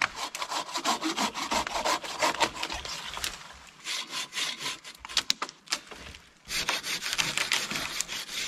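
Hand pruning saw cutting through the limb of a fallen tree in repeated back-and-forth strokes, with two short pauses.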